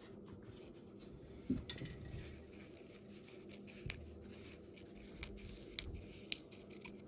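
Small scissors snipping through a ball python's leathery eggshell, with faint, scattered snips and clicks.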